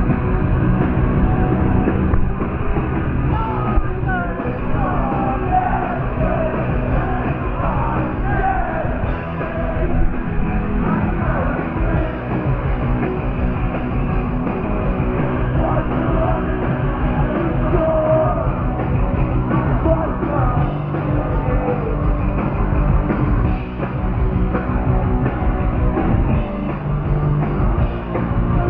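Punk rock band playing live, with guitars, bass, drums and singing, recorded by a fan in the crowd; the sound is loud, dense and cut off in the highs.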